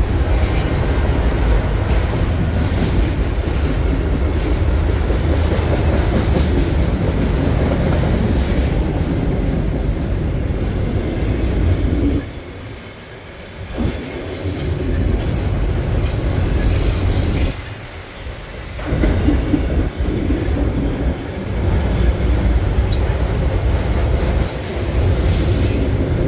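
Freight train of autorack cars rolling slowly past close by: a steady low rumble of wheels on rail with clatter and some wheel squeal. The sound dips away briefly twice, about halfway through.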